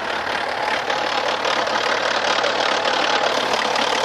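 BMW 535d's N57 straight-six diesel idling with an abnormal clatter, a sound as if the engine were about to break. It closely resembles a stretched timing chain, but the cause turned out to be a rocker arm that had come loose and slipped out of place in the valvetrain.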